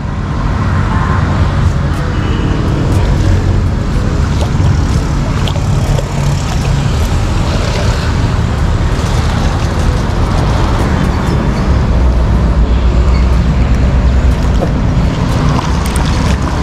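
Steady rumble of road traffic, heaviest in the low end and swelling a little past the middle, with a few light knocks.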